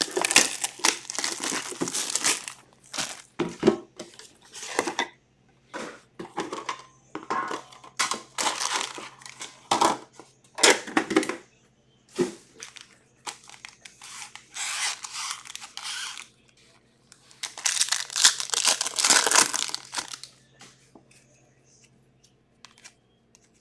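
Foil hockey-card packs being torn open and crinkled by hand, with the cards rustled and shuffled. Irregular bursts of tearing and rustling, sparser and quieter near the end.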